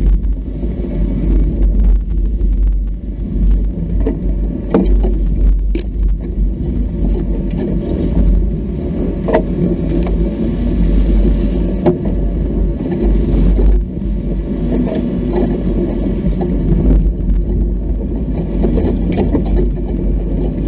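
Off-road vehicle running along a rough trail, a steady low rumble with scattered knocks and rattles as it goes over the ground.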